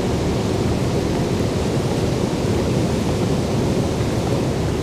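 Steady low rumbling background noise of an underground metro station concourse, with no distinct events.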